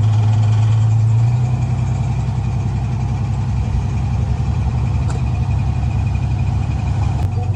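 Diesel engine of heavy earthmoving equipment running steadily with a low, even drone, its note easing about a second in and strengthening again near the end.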